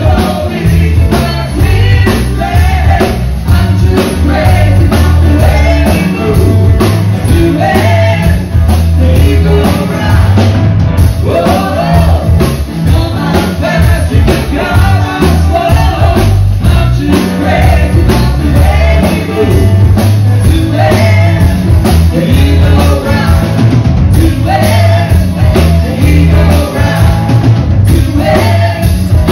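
Live rock band playing at full volume: drum kit, electric bass, acoustic and electric guitars and saxophone under lead and backing vocals, recorded from the room.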